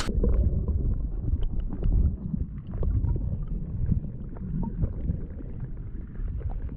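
River water heard through a submerged camera: a muffled, uneven low rumble of current with scattered faint clicks.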